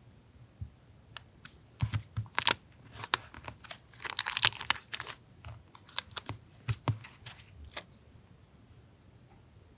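Paper and stickers being handled during collage journaling: scattered crinkles and light taps, with a tearing sound lasting about a second starting around four seconds in.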